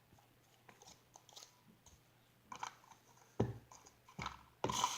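Slime and its tubs being handled: scattered faint clicks and a few short, louder squishing crackles, the loudest near the end.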